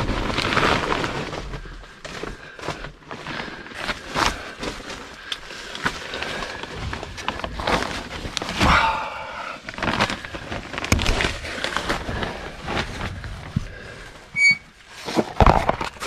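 Plastic vapor-barrier sheeting crinkling and crackling under a person crawling across it, with irregular rustles and knocks throughout and a brief high beep near the end.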